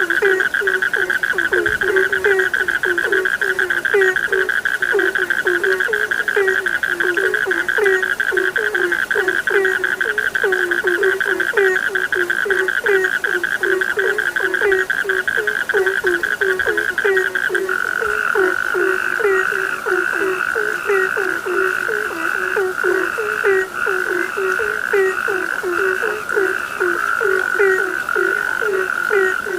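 Frog chorus: short low croaks repeating several times a second over a steady, high-pitched continuous trill. The trill drops slightly in pitch about eighteen seconds in.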